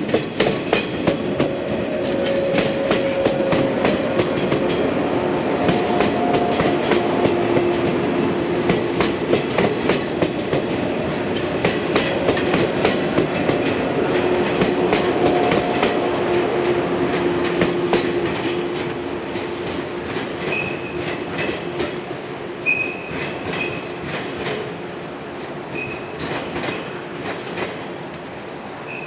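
Yellow JR West 115 series electric trains running past, wheels clicking over rail joints in a quick uneven rhythm with ringing tones from the wheels. After about 18 seconds the sound drops somewhat, and short high wheel squeals come through several times.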